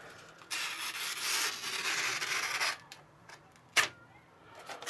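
M390-steel knife blade slicing through a held sheet of printed paper: a scratchy tearing sound lasting about two seconds, then a single sharp tick. The edge frays the paper instead of cutting it cleanly.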